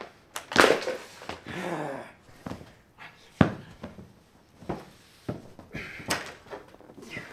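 A couch being rummaged: thumps and knocks as its cushions are shoved and pulled about, the sharpest knock about halfway through. A man's wordless grunts or yells come in the first two seconds.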